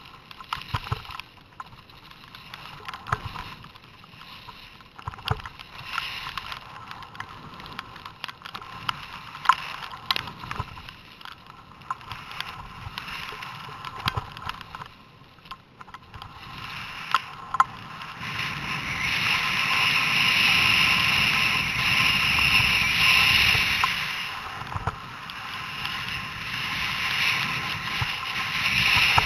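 Skis sliding and scraping on packed snow with wind rushing over a helmet-mounted camera's microphone, punctuated by scattered clicks and knocks. The rush grows louder and steadier about two-thirds of the way through, as the skier picks up speed.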